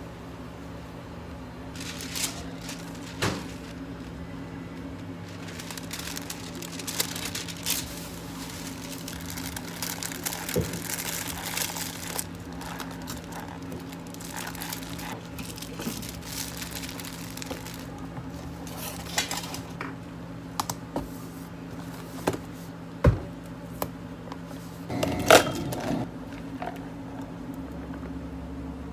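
Hands handling plastic packaging at a counter: crinkling and rustling with scattered light clicks and taps, over a steady low hum. A louder cluster of knocks and rustling comes near the end.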